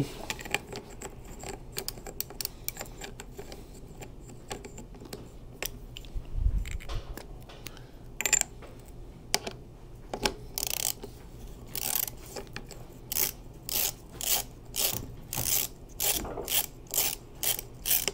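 Ratchet wrench clicking as it turns a Fazua lock ring tool to unscrew the chainring lock ring on a Fazua Ride 60 e-bike motor. The clicks come in short scattered runs at first, then settle into a steady rhythm of about two a second for the last several seconds. A single dull low thump comes about six seconds in.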